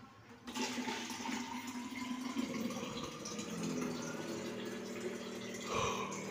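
Water running from a wall-mounted water purifier's tap into a plastic bottle. It starts about half a second in, and the pitch of the filling rises slowly as the bottle fills.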